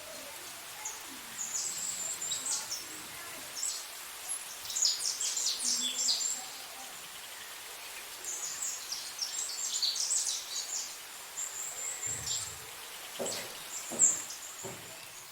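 Small birds chirping, with clusters of quick high-pitched calls through most of the stretch over a steady background hiss. A few short knocks come near the end, one of them the loudest sound.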